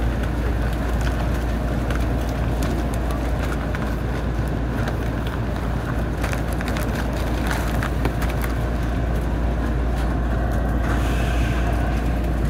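A JR Central 313 series electric train standing at a station platform: a steady low hum from its idling on-board equipment, with scattered small clicks and knocks from around the platform.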